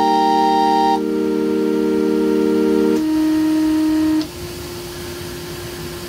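Homemade pipe organ holding a sustained chord whose notes cut off in steps, the upper notes about a second in and the lower ones about three seconds in. After about four seconds a single pipe note is left sounding over the hiss of the organ's air supply.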